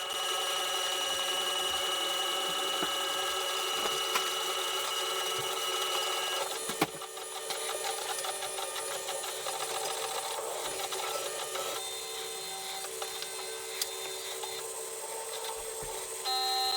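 Monoprice Maker Select Plus 3D printer printing: its stepper motors whine in several steady tones that jump to new pitches as the print head changes moves, about six and a half and twelve seconds in. A single sharp click comes near seven seconds.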